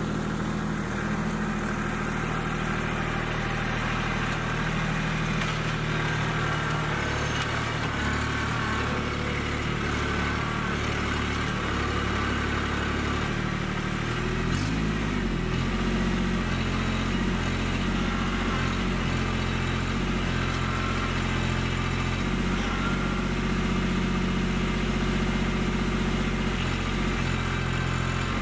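Kubota B2261 compact tractor's three-cylinder diesel engine running steadily while working in the mud, its engine note shifting briefly about halfway through.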